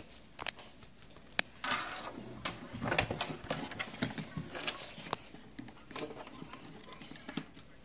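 A wooden-framed wall clock being handled and turned over on a table: irregular clicks and knocks of its frame and glass, with rustling of paper and clothing.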